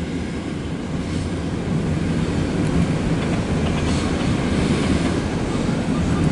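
Loaded coal hopper cars rolling across a railway overpass: a steady rumble of steel wheels on rail.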